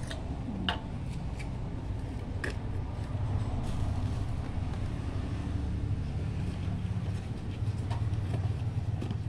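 Low, steady rumble of a motor vehicle engine running, swelling and easing a little, with a few light clicks and crinkles of a plastic bag being handled.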